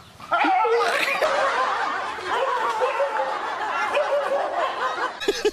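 People laughing and snickering continuously, cutting off abruptly about five seconds in.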